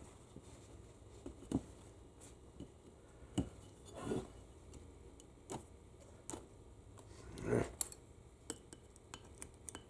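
Sparse, faint metallic clicks and light scrapes of small hand tools working at a stuck component in a U140 automatic transmission part, with a slightly longer scrape about seven and a half seconds in.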